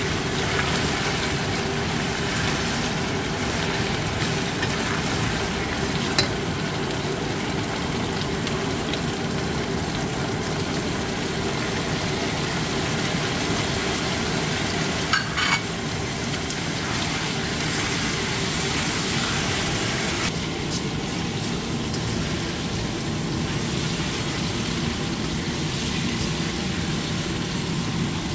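Chunks of meat and small whole onions sizzling in a frying pan while a spatula stirs them, with a steady low hum underneath. A couple of sharp clicks about halfway through come as spices are scraped into the pan from a plate with the spatula.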